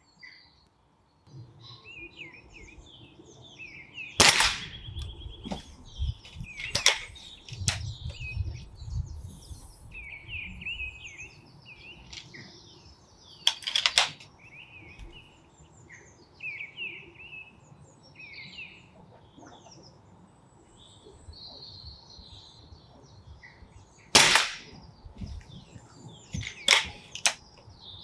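BSA GRT Lightning XL SE gas-ram air rifle being fired several times, each shot a sharp crack. The two loudest come about four seconds in and near 24 seconds, with quieter clicks and knocks between. Birds chirp throughout.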